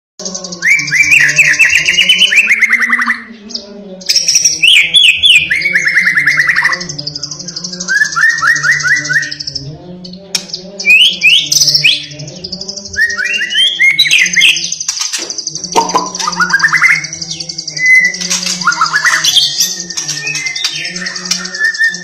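White-rumped shama singing an insistent, varied song: loud phrases of rapid trills and whistled glides, each a second or two long, with short pauses between them. A continuous high buzz and a low hum run underneath.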